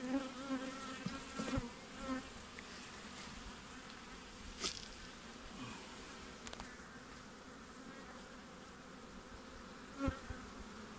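Honey bees buzzing around an opened hive, the hum strongest in the first couple of seconds. A few sharp clicks and knocks of a metal hive tool prying the wooden frames loose, one about halfway through and another near the end as a frame is lifted.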